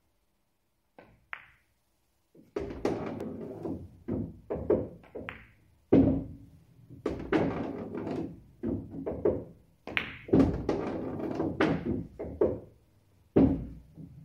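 Pool balls being shot and pocketed on a Diamond pool table: cue tip on the cue ball, ball-on-ball clicks and the thunks of balls dropping into the pockets, several shots in quick succession starting about two and a half seconds in.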